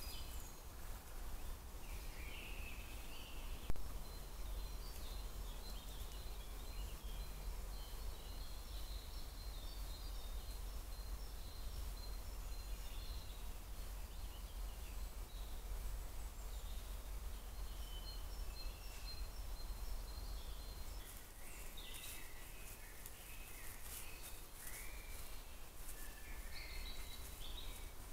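Woodland birds singing and calling, with one short high note repeated many times, over a low steady rumble. About two-thirds of the way through, the rumble drops away and short rustling clicks come in among the bird calls; there is also one sharp click a few seconds in.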